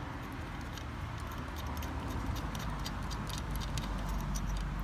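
Light, irregular metallic clicks and ticks of a tool and small parts being worked while a nut on a mountain bike's rear disc brake caliper is undone, over a steady low background rumble.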